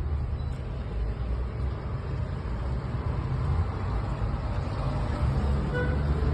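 Steady low rumble of a motor vehicle, with a brief high tone about six seconds in.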